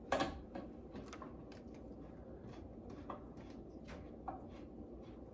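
Faint scattered clicks and light taps of screws and a hand screwdriver being handled as screws are started into a desk panel, with one sharper knock at the start.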